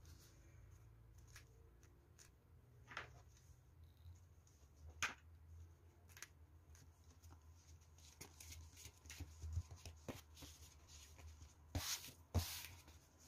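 Faint handling of a cardboard circle and the faux-leather strips being pressed onto its rim: scattered soft clicks and rustles, with a louder rustle near the end as the cardboard is lifted.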